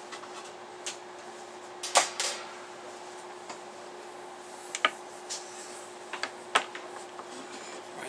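Scattered light clicks and knocks of cable and tools being handled at a workbench, the loudest about two seconds in, over a steady electrical hum.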